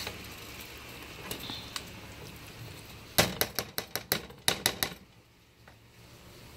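A frying pan of blended pepper and ground pumpkin seeds frying with a low steady sizzle. About three seconds in comes a quick run of about ten sharp clicks and knocks of kitchenware against the pan, the loudest sounds here.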